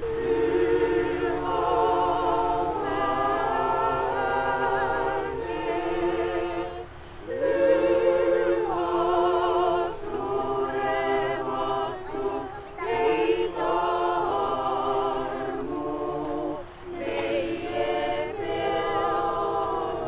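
Choir singing an Orthodox liturgical hymn a cappella, several voices together in phrases with short breaks between them.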